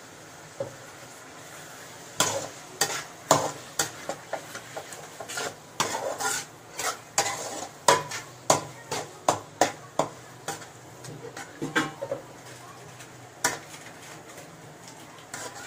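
A metal spatula scraping and knocking against a metal kadai as onion-tomato masala with chilli powder is stirred in oil. It is a quick, uneven run of strokes that starts about two seconds in and dies away a couple of seconds before the end.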